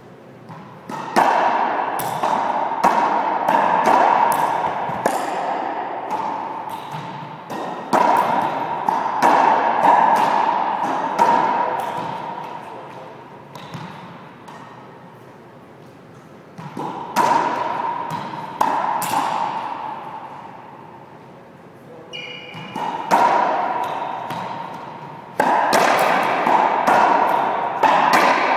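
Racquetball rallies: the hard rubber ball cracking off racquets, walls and floor, each hit ringing in the echoing enclosed court. The hits come in four runs of play with short pauses between, and a brief high squeak comes just before the last run.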